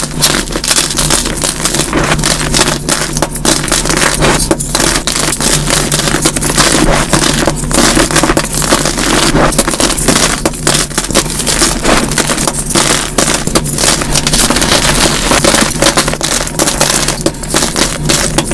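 Dyed gym chalk blocks crushed and crumbled by hand into dusty powder: dense, rapid crunching and crackling without a break, sped up to double speed.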